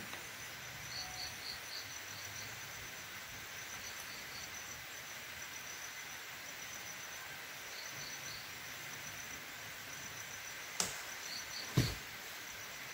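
Insects chirping in short pulsed groups over a steady background hiss, with two sharp cracks near the end, about a second apart, the second the louder.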